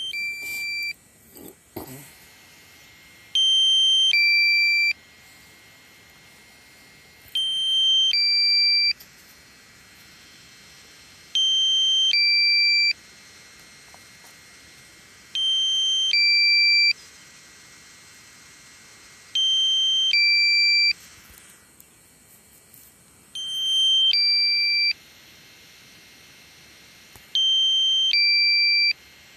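Electronic warning beeper sounding a two-tone beep, a high tone stepping down to a lower one, each beep about a second and a half long and repeating every four seconds over a faint steady hiss.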